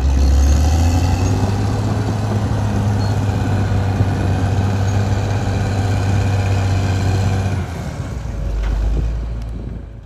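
Caterpillar D6R XL bulldozer's diesel engine running steadily with a strong low hum as the dozer crawls along a dirt track. About three-quarters of the way through, the engine note drops and a deeper rumble swells briefly before the sound fades out.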